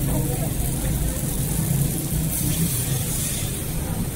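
Charcoal-fired wok stove burning with a steady low rumble and hiss under the woks.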